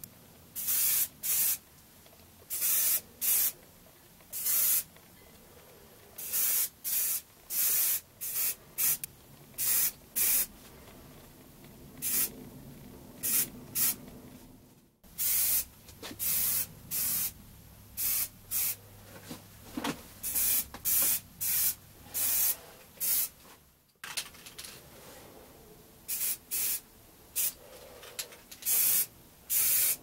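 Aerosol can of primer paint spraying in dozens of short bursts of hiss, each a fraction of a second, with short pauses between, as the primer is dusted onto a bicycle's forks and frame joints.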